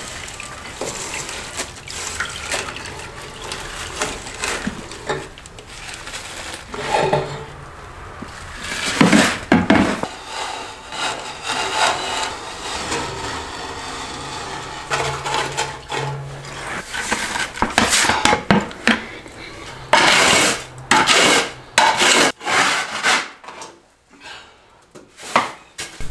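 A plastic scoop scraping and shovelling wet metal chips along the metal bottom of a CNC machine's coolant tank, making irregular gritty scrapes. A run of louder, sharper scrapes and clatters comes about twenty seconds in.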